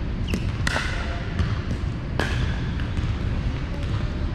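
A pickleball rally: sharp pops of paddles striking the plastic ball and the ball bouncing on the hardwood court, the two loudest about a second apart and a second and a half apart after that, over a steady low hum in a large, echoing gym.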